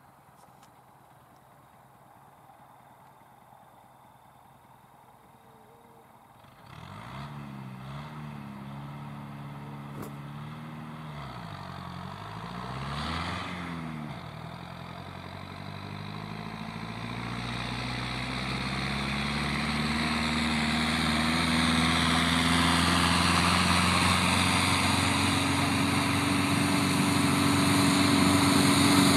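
Nuffield 460 Turbo tractor's diesel engine working under a heavy load. It is faint at first, then comes in suddenly about six seconds in and wavers in pitch with a dip near the middle, around a gear change from fourth to fifth. After that its pitch climbs steadily and it grows louder as it pulls up to speed.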